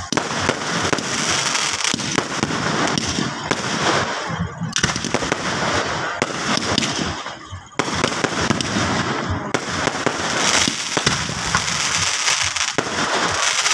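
Aerial fireworks going off in rapid succession: a near-continuous barrage of bangs and crackle, with a short lull about seven seconds in that ends in a sudden loud burst.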